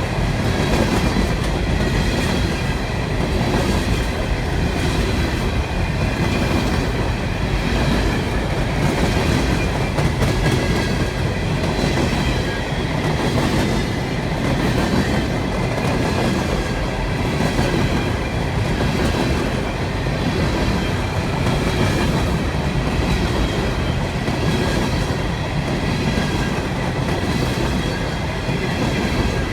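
Long CSX coal hopper freight train rolling past, a steady rumble with the wheels clattering over the rail joints in a regular beat a little over once a second, and a faint high ringing from the wheels.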